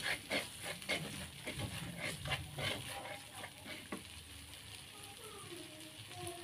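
Plastic spatula stirring and scraping chili paste around a stone-coated wok, about three strokes a second, with the paste sizzling in oil. The stirring stops about four seconds in, leaving a faint sizzle.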